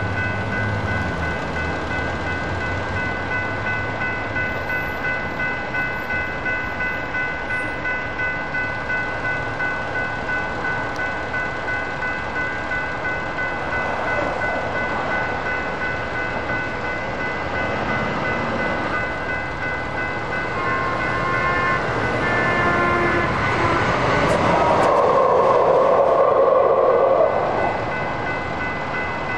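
Electronic railroad-crossing bells ringing steadily while the crossing is active. In the last third, the approaching light rail train's horn joins in, grows louder and cuts off sharply a couple of seconds before the end.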